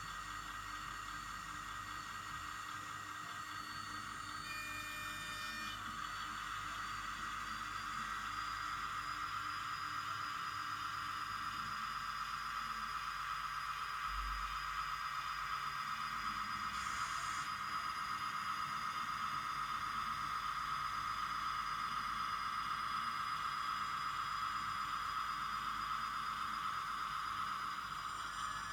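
Small electric motor of a model railway locomotive running on the track: a steady whine that grows gradually louder and drops back near the end as the locomotive is brought to a stop.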